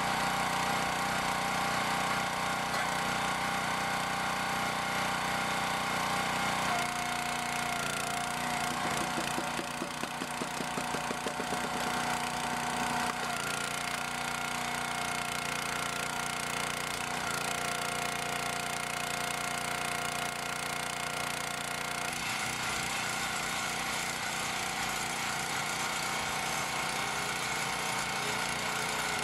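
6.5 PS OHV petrol engine of a Jansen HS-22A62 log splitter running steadily. About seven seconds in its note drops and throbs unevenly while the hydraulic ram drives the splitting wedge down through a log. The note shifts again after about twenty-two seconds.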